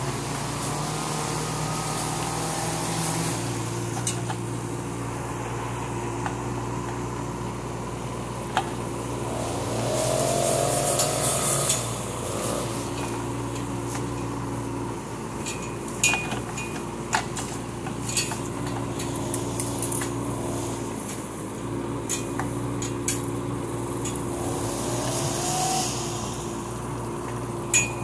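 Kubota K008 mini excavator's diesel engine running steadily while its hydraulics work the bucket into a bush, with a rising hydraulic whine under load around ten seconds in and again near the end. Sharp snaps and knocks come as the bucket tears at the roots and branches.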